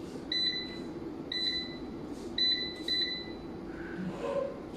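Touch-key beeps from a Crown Xavier 5.6 kW hybrid solar inverter's control panel as its buttons are pressed to step through the settings menu. There are four short high beeps, the last two close together and the last one ringing a little longer, over a steady low hum.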